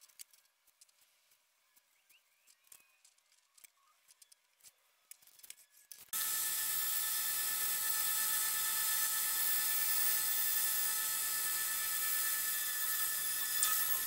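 A few faint clicks and rustles, then about six seconds in a bandsaw comes in abruptly and runs steadily, a high whine over a strong hiss, as it cuts through an MDF template board.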